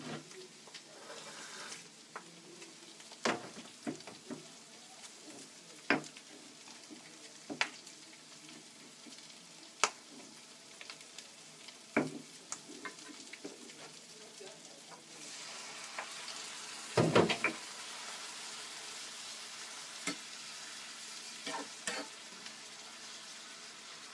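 Tempeh and seafood stir-frying in a frying pan: a steady sizzle, with the spatula scraping and knocking against the pan every second or two. The sizzle grows louder about fifteen seconds in, with a quick cluster of loud knocks soon after.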